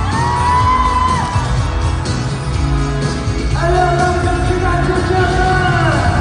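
Live pop music from a concert stage: the band plays with heavy bass and drums under singing. Two long held notes come through, one at the start lasting about a second, the other from about three and a half seconds in to near the end.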